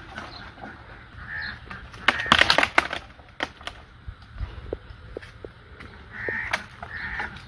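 Crows cawing, a few separate calls, with a loud burst of clattering knocks about two seconds in and scattered sharp clicks after it.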